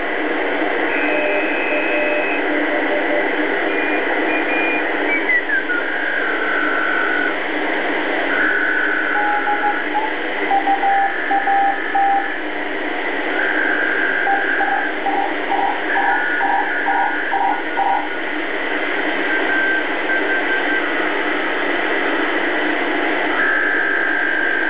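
BC-312G shortwave communications receiver being tuned across the band: steady static hiss with whistling tones that come and go, one sliding down in pitch about five seconds in. Later come rows of short on-off keyed tones, like Morse code signals.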